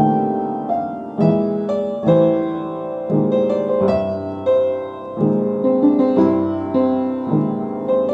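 Solo piano playing a slow blues piece, chords and melody notes struck every half second or so and left to ring out.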